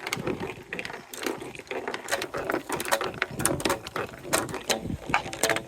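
Marbles rolling and clacking along a plastic TrixTrack marble-run track: a quick, irregular run of sharp clicks, several a second.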